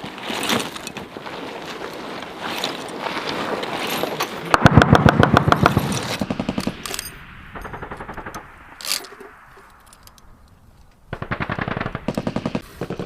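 Machine-gun fire in rapid bursts of about ten rounds a second. The loudest burst comes about four and a half seconds in, weaker runs follow, there is a single sharp shot around nine seconds in, and another burst comes near the end.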